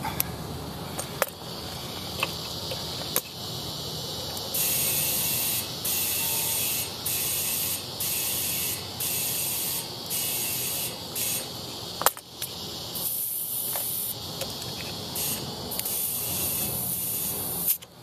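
Compressed air hissing into a golf cart tire through an inflator chuck on the valve stem, in a run of hisses about a second long with short breaks, as the tire is brought up to 22 psi. A few sharp clicks come in the first seconds and one about two-thirds of the way through.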